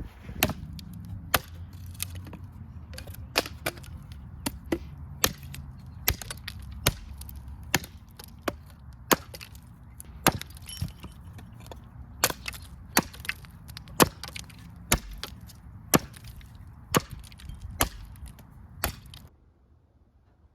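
Machete chopping into wood: sharp, irregular strikes about one to two a second, stopping abruptly near the end.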